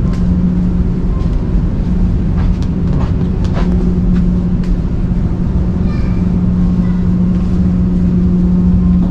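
Steady low drone of the ship's engine machinery carried through the hull into a lower deck below the waterline, with a strong constant hum. A few light clicks and taps are scattered through it.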